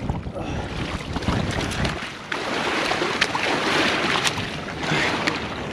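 Wind rumbling on the microphone, then a rustling hiss with a few sharp clicks in the second half.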